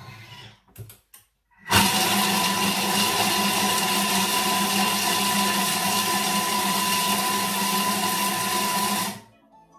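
Thermomix blade chopping quartered rice cakes at speed 5: a loud, steady whir with a hum that starts abruptly about two seconds in and cuts off after about seven seconds.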